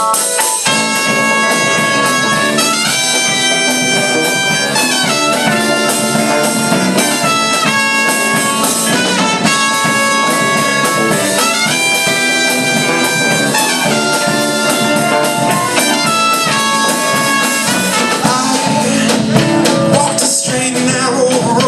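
Live band playing an instrumental passage: a lead melody in long held notes over a full backing with steady drum hits.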